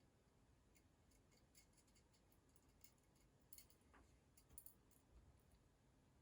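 Near silence with a few faint, scattered light clicks of small metal construction-kit parts, nuts and bolts being handled.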